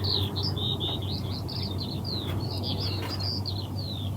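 Small birds chirping in a fast, unbroken string of short high notes, each sliding downward, over a low steady hum.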